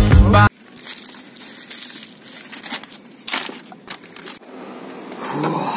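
Music cuts off about half a second in; then a paper sandwich bag crinkles and rustles as a hand handles it, with a few sharper crackles.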